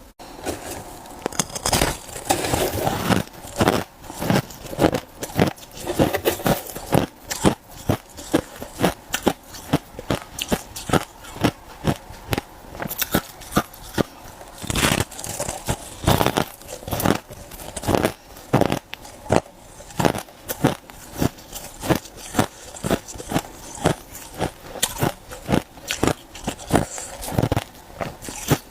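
A person biting and chewing ice close to the microphone: loud, sharp crunches in a steady run of about two a second, with crackling between them.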